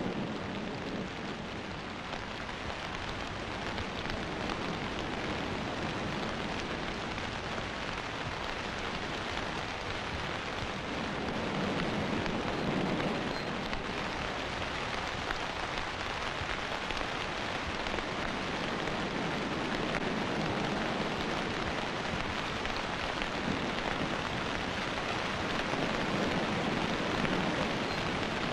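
Steady rain falling, an even hiss, with two low rumbles of distant thunder, one about halfway through and one near the end.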